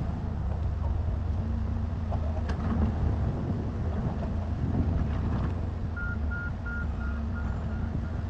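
Heavy diesel construction machinery running steadily with a low rumble. About six seconds in, a warning alarm starts beeping at a steady high pitch, about twice a second.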